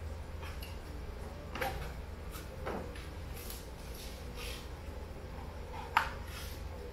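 A few light clicks and rustles of food and takeout containers being handled on a table, with one sharper click near the end, over a low steady hum.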